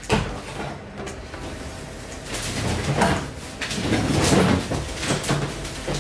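Plastic wrapping rustling and crinkling, with a few light knocks as plastic parts are moved about. The rustling grows louder about two seconds in and goes on to near the end.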